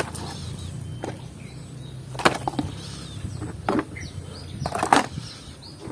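Toys knocking against one another as they are gathered into a pile: four sharp knocks, roughly a second or more apart.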